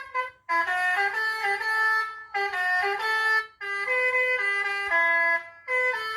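Electronic telolet bus horn unit playing a multi-note melody through its speaker, in short phrases separated by brief pauses.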